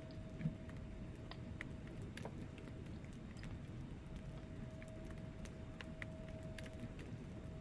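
Wood fire burning in a fireplace: a soft, steady low rumble of flames with scattered crackles and pops from the burning logs, one sharper pop about half a second in. A faint, thin steady tone fades in and out behind them.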